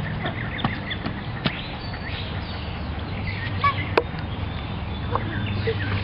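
Small birds chirping and calling over a steady low hum, with a sharp click about four seconds in.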